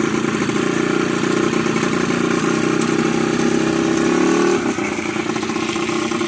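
Small sport motorcycle's engine running at a low, steady speed as the bike pulls away slowly, the revs rising slightly and then dropping about four and a half seconds in.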